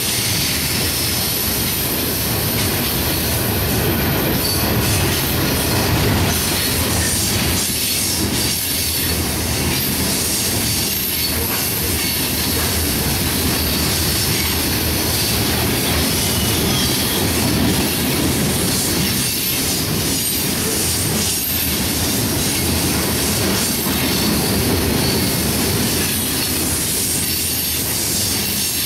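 Coal train of steel hopper cars rolling past at speed: a steady rumble of wheels on rail with a high-pitched wheel squeal over it.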